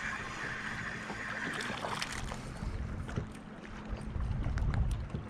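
Water lapping and sloshing against a plastic kayak hull, with scattered light clicks and knocks. Wind rumbles on the microphone about four seconds in.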